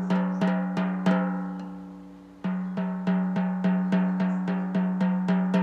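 The FEP film of a Creality Halot One Plus resin vat is tapped lightly with a pencil's rubber eraser, about three taps a second with a pause of about a second and a half after the first few. Each tap sets the film ringing at a steady pitch near 198 Hz. That pitch marks the film's tension as it comes from the factory.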